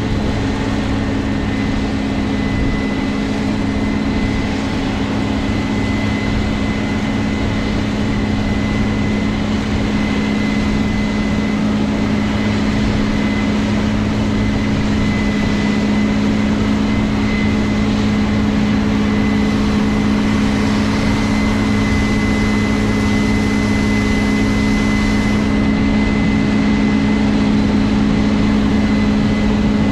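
Case IH 7120 Axial-Flow combine harvester running steadily, a constant low engine drone with a thin high whine over it. A further steady tone joins the drone a little past halfway.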